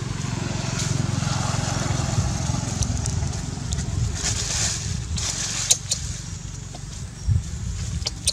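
Dry fallen leaves crackling and rustling under moving monkeys, with sharp crackles scattered through the second half, over a steady low rumble.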